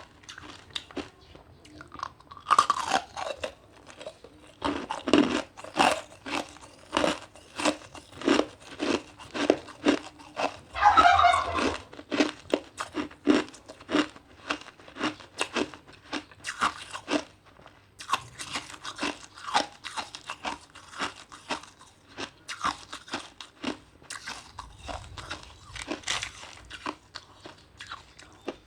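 Ice being bitten and chewed: a steady run of sharp, loud crunches, about one to two a second. A bird calls briefly twice, once with a falling pitch near the start and once with a warble about eleven seconds in.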